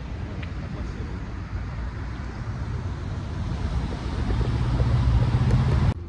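Road traffic: a steady wash of passing cars, with a vehicle's low engine hum growing louder over the last few seconds and then cutting off abruptly.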